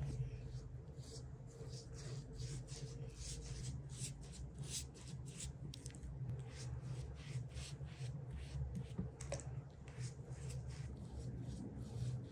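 Pastry brush swishing melted butter across a thin rolled-out sheet of dough, in quick repeated strokes about two to three a second, with dips into a glass bowl of melted butter.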